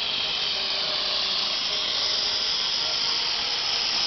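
Steam hissing steadily from a live-steam miniature ride-on locomotive as it vents a tall plume.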